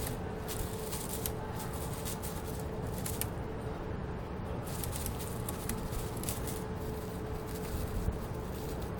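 Squirrel gnawing on plastic: clusters of short crackling clicks in the first second, again around three seconds in, and in a longer run around five to six seconds in, over a steady low outdoor rumble.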